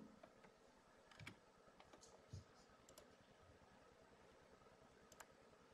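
Near silence: room tone with a few faint, scattered clicks from a laptop being operated to change slides.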